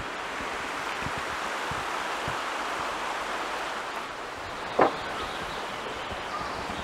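Steady rush of flowing water from a stream. Soft footsteps on a dirt path come in the first seconds, and a short sharp creak about five seconds in comes from the wooden park bench as it is sat on.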